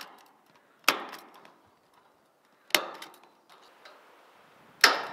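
Hand staple gun firing staples into the chicken tractor's wooden frame: three sharp snaps, spaced a couple of seconds apart.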